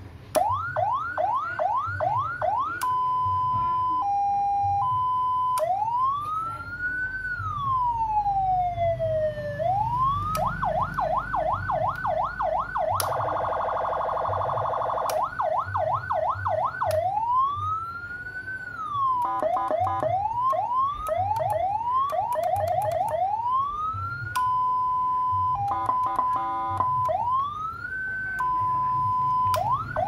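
Senken CJB100BDI 100-watt electronic siren module sounding through a YD100i 100-watt horn speaker, switched through its tones one after another: fast repeating yelp sweeps, a steady note and a two-note hi-lo, slow wail rises and falls, a buzzing horn tone for about two seconds near the middle, and rapid stuttering pulses.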